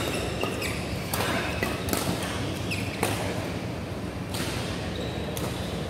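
Badminton rackets striking a shuttlecock in a rally, five sharp hits about a second apart, with short shoe squeaks on the court floor and a steady low hum underneath.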